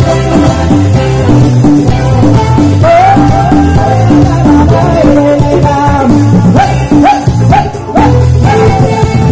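Loud live dance music from an event keyboardist's synthesizer: a steady drum-machine beat and bass under a lead melody with short upward-sliding notes.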